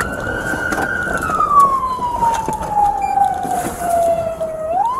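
Police siren on wail, heard from inside the patrol car during a pursuit: the tone holds high for about a second, falls slowly for about three and a half seconds, then sweeps quickly back up near the end, over steady road noise.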